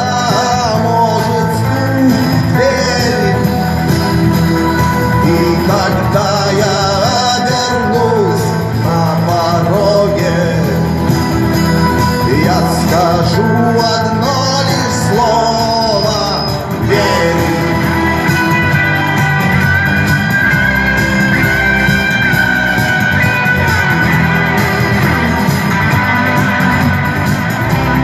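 Music: a rock song with a singing voice, which gives way to an instrumental passage with held notes about two-thirds of the way through.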